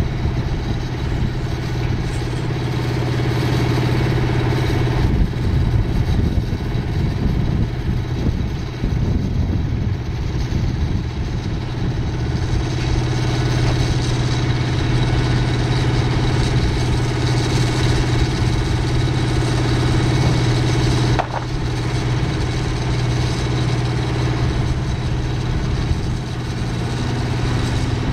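Diesel engine of a mobile hydraulic crane running steadily, powering the hydraulics as it lifts a steel roof truss. A brief click comes about two-thirds of the way through, after which the engine runs slightly quieter.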